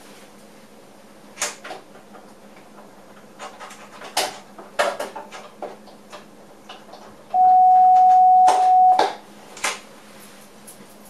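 A steady electronic warning beep in a train driver's cab sounds for about a second and a half, ending abruptly, amid scattered clicks and rattles of the cab over a steady low hum.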